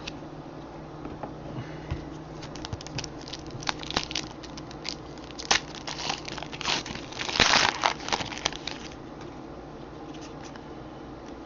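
Trading cards being handled and sorted: irregular crinkling and light clicks, busiest about seven to eight seconds in, over a faint steady hum.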